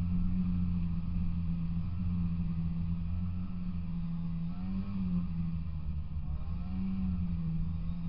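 Polaris Indy 340 snowmobile's two-stroke engine running steadily while riding, its pitch shifting slightly a few times with the throttle.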